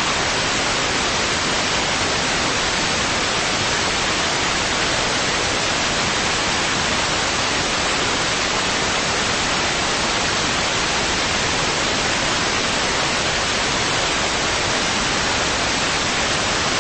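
Loud, steady hiss of static, even from low to high, with nothing else in it: the noise of an audio feed carrying no program.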